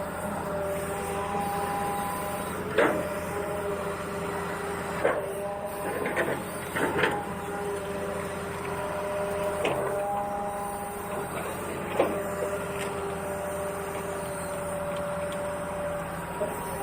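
Small electric motors and gearboxes of radio-controlled model construction vehicles whining at a few steady pitches that switch on and off, with sharp clicks and knocks every few seconds.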